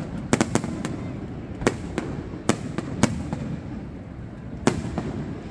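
Aerial firework shells bursting overhead: sharp bangs at irregular intervals, three in quick succession about a third of a second in, then single bangs spaced out, the last near the end.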